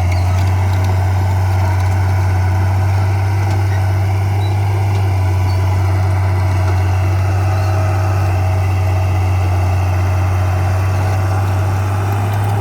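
Heavy diesel engine of an earthmoving machine running steadily at a constant low pitch.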